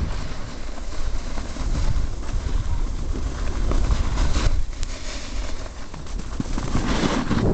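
Wind buffeting the camera microphone in uneven gusts: a rumbling rush that eases a little past the middle and picks up again near the end.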